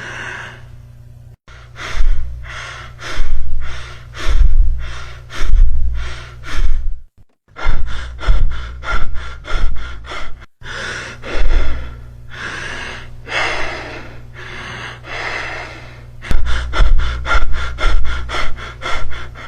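Recorded breath sounds played as examples: quick, noisy in-and-out breaths, mostly about two a second. They come in several separate runs broken by brief silent gaps, over a steady low hum.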